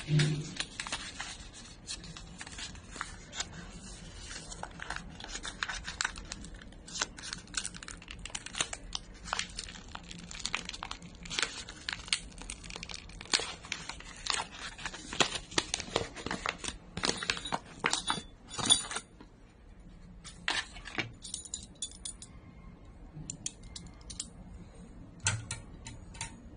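Hands crinkling and rustling a thin plastic bag, a dense run of crackles that thins out about two-thirds of the way through, with light metallic clinks of a bicycle cassette's sprockets being handled near the end.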